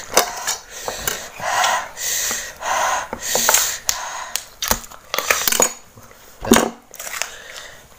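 Close-up crunchy biting and chewing of raw cassava and unripe banana, in crackly bursts about once a second, mixed with sharp clicks of a knife and plate, the loudest a single knock about six and a half seconds in.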